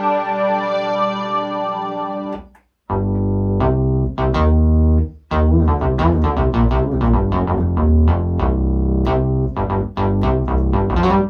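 Yamaha QS300 synthesizer playing its preset sounds: a sustained chord held for about two and a half seconds, then after a short break a different patch with a deep bass line under quick plucked-sounding notes.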